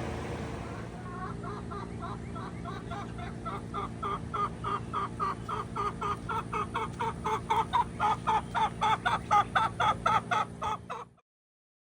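Hens clucking, the clucks coming faster and louder into a rapid, rhythmic run of several a second, over a steady low hum. The sound cuts off abruptly near the end.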